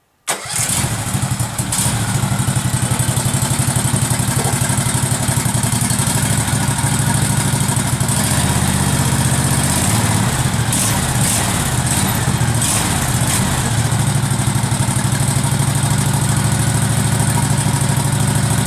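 Case 446 garden tractor engine starting on its first run after restoration, catching almost at once and settling into a steady low idle with a fast, even pulsing beat; no throttle is connected, so it stays at low idle.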